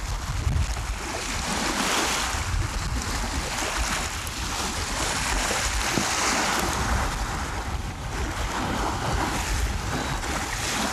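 Storm-driven waves washing in on the reservoir shore, surging and easing every few seconds, with strong wind buffeting the microphone as a low rumble.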